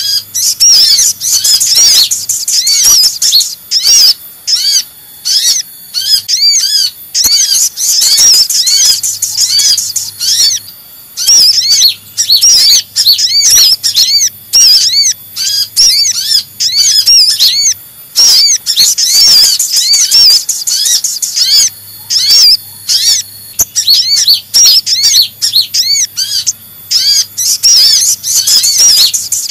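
Sunbird lure calls: a rapid, high-pitched chattering of short arching chips in runs separated by brief pauses. The track mixes the calls of the kolibri ninja (konin) and the sogon (sogok ontong), made to draw in small birds.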